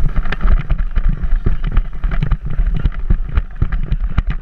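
Fast, irregular thumps of a lacrosse player's running footfalls jolting a helmet-mounted camera, over wind buffeting the microphone.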